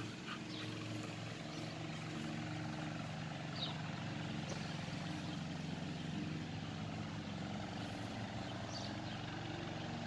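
Steady low engine drone with an even hum, from a motor or aircraft, with a few brief faint high chirps over it.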